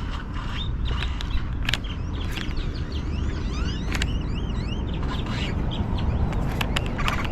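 Small birds chirping and singing, many quick arching chirps over a steady low rumble, with a few sharp clicks.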